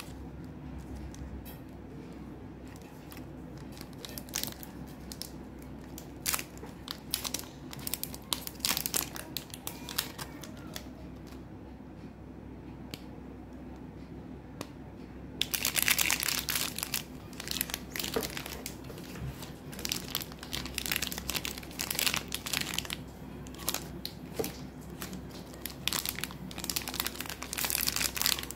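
Chocolate-bar wrappers being crinkled and torn open by hand. There are scattered, fainter crinkles at first, then loud, dense crinkling and tearing from about halfway through.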